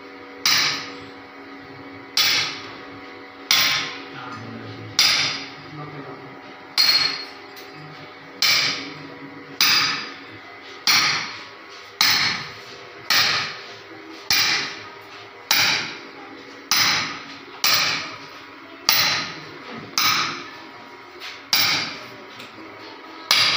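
Hand hammer blows chipping at masonry, about eighteen sharp strikes at a steady pace of roughly one every second and a bit, each with a short ringing tail: cutting away part of the wall base to make room for a fitting.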